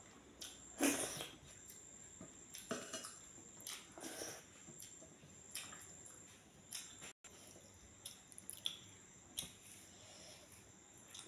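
A person eating rice by hand: chewing and lip smacking, with fingers working the rice on a steel plate, heard as scattered short wet smacks and clicks, the loudest about a second in.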